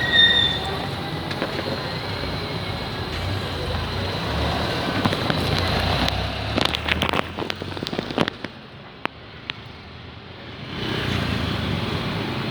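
Busy street noise with traffic running steadily. About six seconds in comes a run of sharp crackles and clicks, followed by a brief quieter lull before the traffic noise returns.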